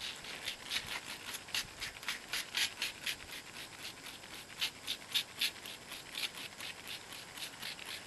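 A trigger spray bottle being squeezed rapidly, about four short sprays a second.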